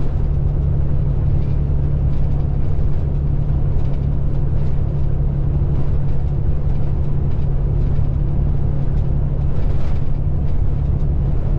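A semi-truck's diesel engine and road noise heard from inside the cab at steady cruising speed: an even, unchanging drone with a steady low hum.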